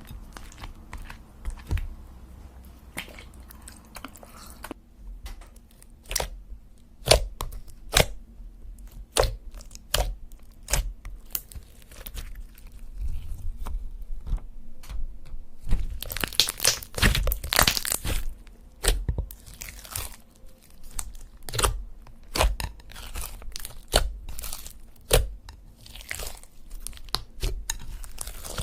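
Irregular crisp crunching and crackling, many sharp snaps in quick succession, with a cluster of denser crackles a little past the middle.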